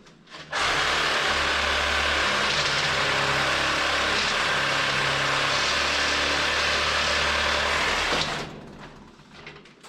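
An engine or machine running steadily, with a low hum under a loud even rush of noise. It starts abruptly and fades out near the end.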